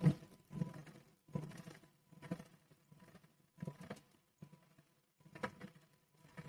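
Sewing machine stitching in short runs of a fraction of a second each, stopping and starting about half a dozen times.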